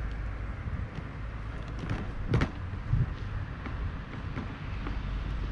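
A rooftop TV antenna knocking twice against its mounting base as it is set down and seated, a sharp knock then a duller thud, over a steady low rumble.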